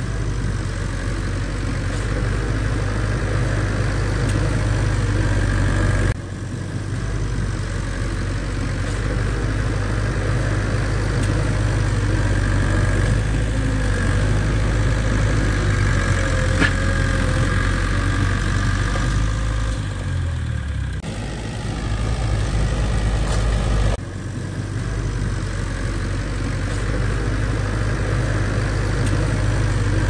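Heavy diesel engine of a working bulldozer, running steadily. Its sound shifts abruptly about six and twenty-four seconds in, and drops briefly around twenty-one seconds.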